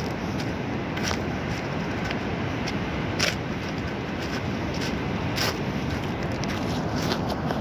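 Steady rush of surf washing onto a pebble shore, with occasional sharp clicks and crunches of pebbles knocking together.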